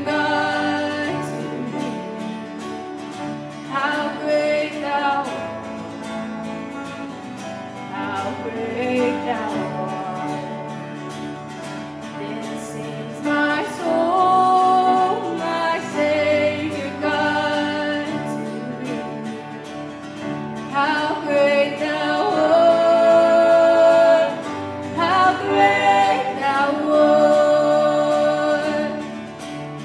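Live contemporary worship song: a woman singing lead over acoustic guitar and keyboard, with other voices joining, the music growing louder about halfway through.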